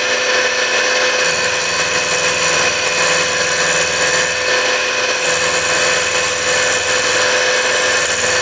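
Milling machine running with a small end mill cutting down into a brass bushing, taking about fifty thousandths off its top. It makes a steady high whine with several held tones. A lower hum under it fades about halfway through and comes back about five seconds in.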